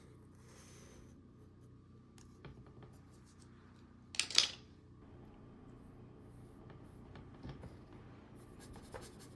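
Faint scratching of a paintbrush working acrylic paint on canvas, with one short, louder scrape about four seconds in.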